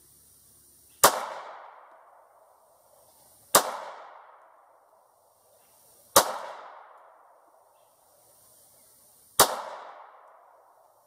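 Ruger Security 9 9mm pistol fired four times, slow aimed shots a few seconds apart, each report trailing off in an echo over about a second. None of the shots hits the plate target.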